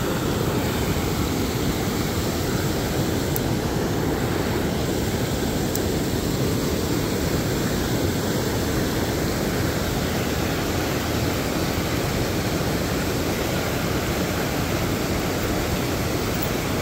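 Steady rushing of a shallow river running over rocks in riffles, an even noise that holds at one level throughout.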